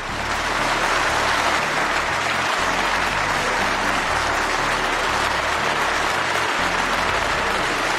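A large parliamentary assembly applauding: many hands clapping in a steady, dense ovation. Low background music runs underneath.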